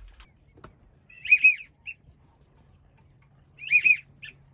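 Two loud whistled duck calls, each a quick pair of high arched notes followed by a short lower peep, about a second in and again near the end, over a faint steady low hum.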